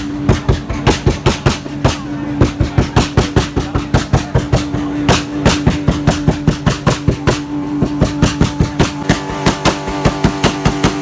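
An engine revved up and held at high revs, stuttering rapidly in a fast series of loud pulses, in the manner of an engine bouncing off its rev limiter.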